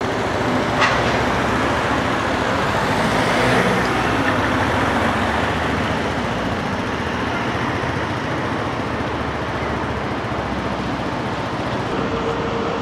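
Steady road traffic noise, swelling briefly about three and a half seconds in as a vehicle passes, with a short click about a second in.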